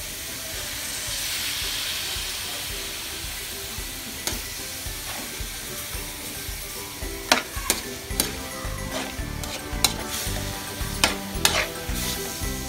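Cubed pork belly sizzling in a metal wok with a little water while a metal spoon stirs it. The hiss swells briefly early on, and from about seven seconds in the spoon clinks and scrapes against the wok again and again.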